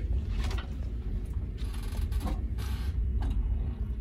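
Steel exit door with a push bar swinging shut on its overhead closer: faint creaks and a few light mechanical clicks over a steady low rumble.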